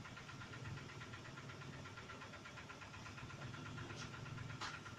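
A steady low hum with a fast, even buzz running through it, and two short clicks near the end.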